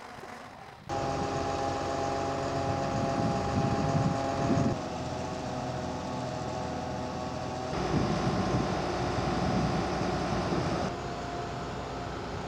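Mobile crane's diesel engine running steadily under load while lifting a wind turbine rotor. It gets suddenly louder about a second in.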